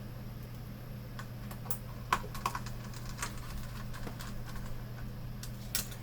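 Scattered light clicks and taps of a monitor's plastic and metal parts being handled and fitted during reassembly, over a steady low hum.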